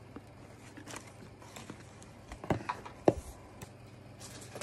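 Light handling noises from a plastic power adapter and its packaging: a few soft clicks and knocks, the loudest about three seconds in, over a faint steady hum.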